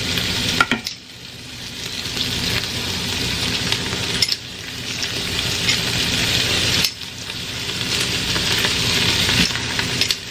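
Diced onion and bell pepper sizzling as they sauté in an electric multicooker's stainless steel inner pot, stirred with a wooden spoon. The sizzle drops sharply three times and builds back each time.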